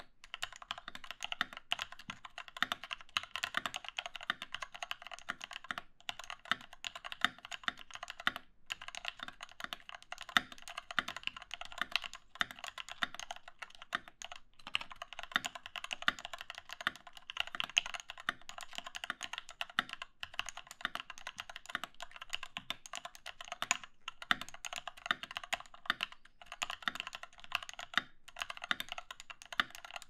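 Continuous typing on a Doro67 custom mechanical keyboard with lubed Cherry MX retooled black linear switches and XDA keycaps, with a few short pauses. The key strokes are smooth and muted.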